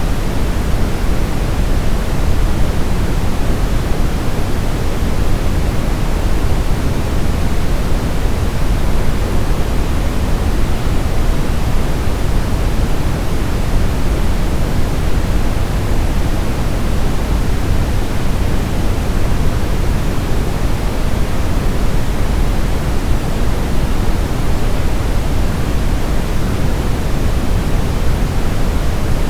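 Steady synthetic white noise used as a baby sleep aid: an even, unchanging hiss that is heavier in the low end than in the high.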